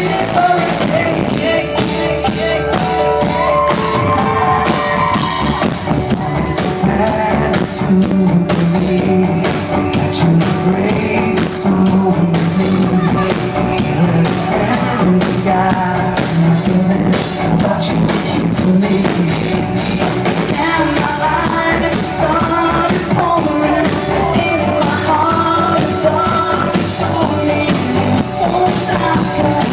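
Live pop-rock band playing loudly, with a drum kit keeping a steady beat under guitars and voices.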